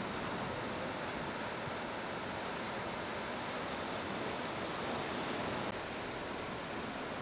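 Ocean surf: a steady rush of breaking waves and whitewater, a little softer after about six seconds.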